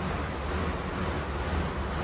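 Rogue Echo air bike's fan spinning as it is pedalled: a steady rush of air with a low hum underneath.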